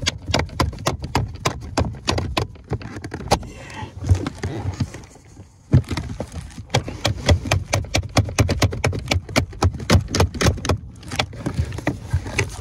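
Rapid, uneven clicking and knocking of the clutch pedal assembly's parts, pedal, pin and plastic bushes, as hands work them under the dashboard, several clicks a second with a short pause about five seconds in.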